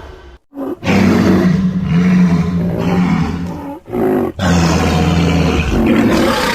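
Giant-monster (kaiju) roar sound effects: two long, loud roars about three seconds and two seconds long, separated by a short call.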